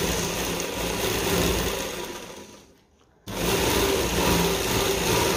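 Electric sewing machine running at speed with an unthreaded needle, stitching through lace to gather it into a curve. It winds down and stops about two and a half seconds in, then starts again suddenly about half a second later.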